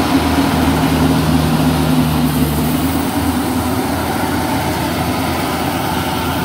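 Yanmar YH850 rice combine harvester running under load while cutting and threshing rice: a steady diesel engine drone with a regular low throb. A steady hum in the drone drops away about three seconds in.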